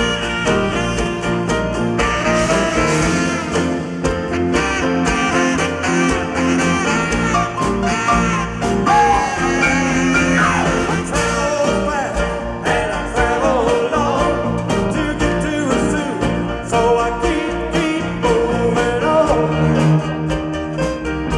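Live band playing a country-blues song, with a lead guitar line over bass and a steady drum beat.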